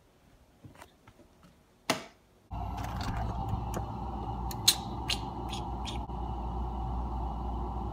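Near silence with a few faint clicks, then about two and a half seconds in a steady hum starts suddenly. Over it come several sharp clicks and knocks from things being handled at an open refrigerator.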